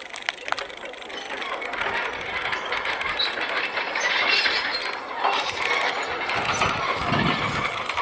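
Bicycle rolling along a paved road, ticking and rattling, growing louder about a second in.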